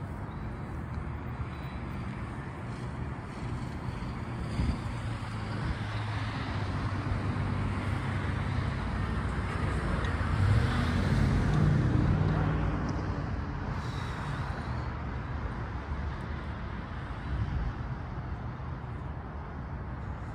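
Road traffic: a steady rumble of passing cars, swelling as one vehicle goes by about halfway through and then fading.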